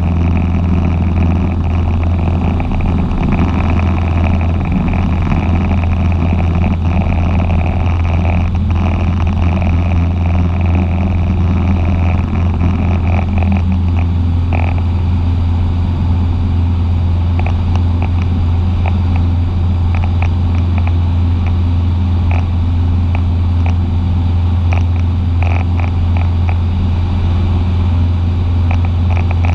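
Cessna 150's four-cylinder Continental O-200 engine and propeller running with a steady, unbroken drone, with a few short clicks in the second half.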